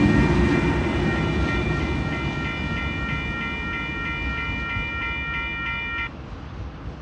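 Level crossing warning bell ringing in an even, repeating pattern over the fading rumble of two TasRail TR-class diesel-electric locomotives pulling away. The bell cuts off suddenly about six seconds in.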